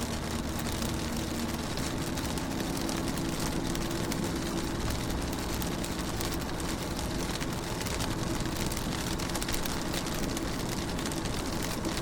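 Rain falling on a car's window and body, many small drop hits over a steady hiss, with a steady low rumble underneath and a faint hum in the first few seconds.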